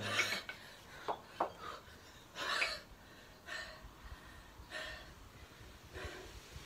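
Kettlebell sport athlete breathing hard in short, sharp breaths a second or so apart while holding two kettlebells in the rack position between long-cycle repetitions. There are a couple of short knocks about a second in.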